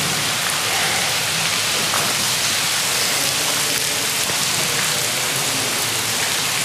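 Water falling and dripping from a mossy rock overhang into a pool, a steady rain-like splashing hiss.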